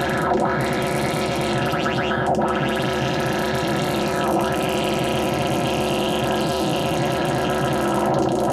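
Make Noise Eurorack modular synthesizer playing a dense, steady drone of many layered tones. Its upper range swells about every two seconds.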